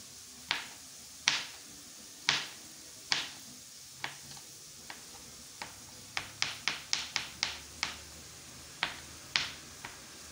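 Kitchen knife chopping through small pieces of food onto a plastic cutting board: sharp clicks, about one a second at first, a quick run of about eight chops in the middle, then a few slower ones near the end.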